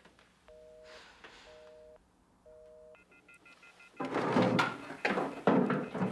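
Telephone busy signal heard over the line: three short beeps, each two steady tones at once, about a second apart, meaning the line called is engaged. About four seconds in, a much louder burst of sound takes over.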